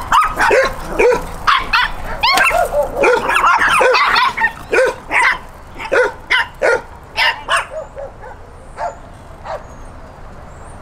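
Several small dogs barking, many short high barks close together at first, then spacing out and fading away over the last few seconds.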